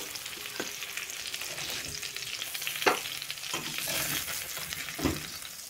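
Oil sizzling in a stainless steel pot with browned chicken pieces, with a few light knocks of a metal slotted spatula against the pot as the pieces are lifted out.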